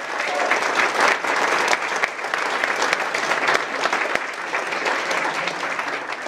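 Audience applauding steadily: many hands clapping together.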